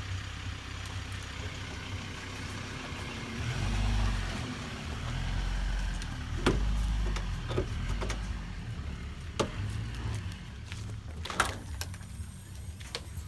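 A car moving slowly, its engine and tyres giving a low rumble that swells twice, with scattered knocks and rattles from the car body.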